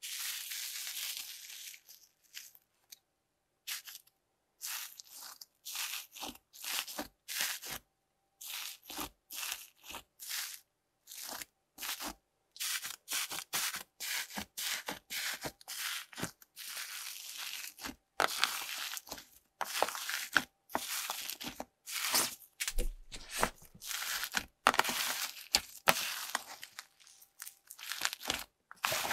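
Crunchy, bubbly slime packed with foam cubes and small beads, squished and kneaded by hand: bursts of crackling, popping and crunching with short silent gaps. The bursts come thicker and louder in the second half.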